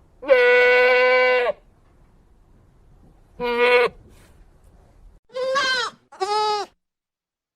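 Goat bleating four times: a long, steady bleat near the start, a short bleat about halfway, then two quick bleats near the end whose pitch rises and falls.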